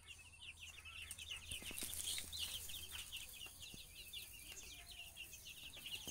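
A brood of baby chicks peeping: many quick, high-pitched cheeps overlapping in a steady stream, getting louder about a second in.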